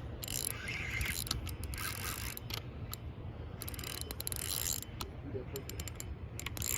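Fishing reel clicking and whirring in short spells as line is worked during the fight with a hooked carp, over a steady low hum.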